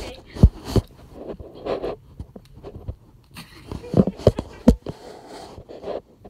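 Handling noise from a phone being moved about while it records: a few sharp knocks, the loudest about half a second in and a cluster around four seconds, with rubbing and scraping in between.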